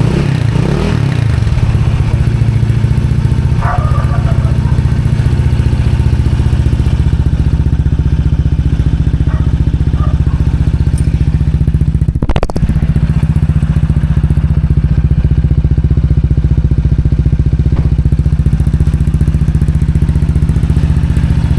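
Honda ADV 160's single-cylinder engine running steadily at idle through a stainless Replica Pro "Silent Killer" aftermarket exhaust, giving a loud, even, low exhaust note with no revving. A brief click interrupts it about twelve seconds in.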